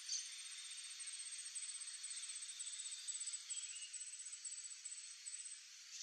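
High-pitched insect trilling in short, rapidly pulsed bursts, about two a second, over a steady hiss; it stops about five and a half seconds in. A brief tick comes right at the start.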